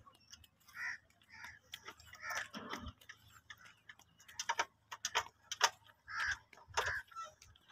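Faint scattered bird calls, with a quick run of light, sharp clicks about four to six seconds in.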